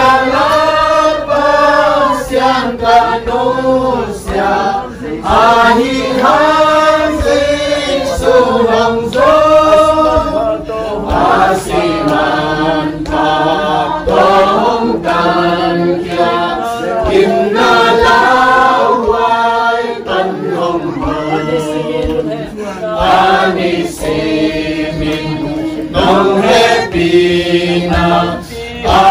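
Several voices singing together, choir-like, in a chanted melody.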